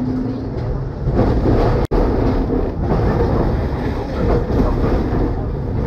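Heritage W-class tram running along street track, heard from its cab: a steady rumble and clatter of steel wheels on the rails and the running gear, getting louder about a second in. The sound cuts out for an instant just before two seconds in.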